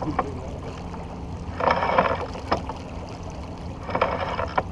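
Water rushing and splashing along a sailboat's hull as it rides the waves, in short swells about every two seconds, over a steady low rumble of wind.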